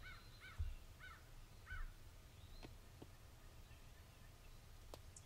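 A distant bird calls four times in quick succession, about half a second apart, each call rising and falling. Two soft low thumps come under the calls, one near the start and one just under two seconds in. Then only faint outdoor quiet remains.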